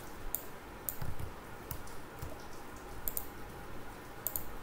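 Computer mouse clicking: a handful of sharp clicks scattered through the few seconds, some in quick press-and-release pairs, over faint background hiss.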